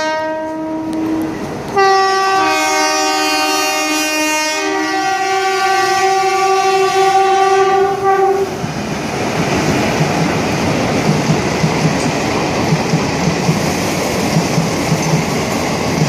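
Indian Railways WAP-4 electric locomotive sounding its triple-tone horn: a short single-note blast, then a longer blast of several notes at once that changes pitch and stops about eight and a half seconds in. Then the express coaches roll past, wheels clicking regularly over the rail joints.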